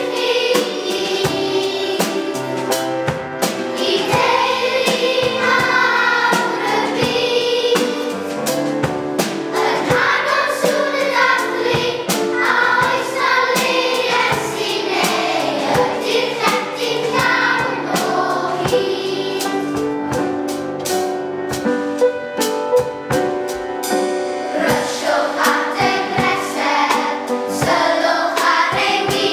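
Children's choir singing a song with instrumental accompaniment and a steady beat.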